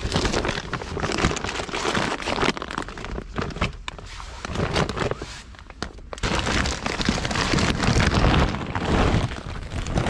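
Woven plastic shopping bags and a plastic food packet rustling and crinkling as they are handled and rummaged through, quieter for a moment around the middle.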